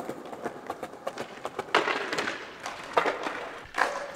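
Skateboards clattering on paving and a wooden bench ledge: sharp clacks of the boards, with a few scraping slides about two, three and four seconds in.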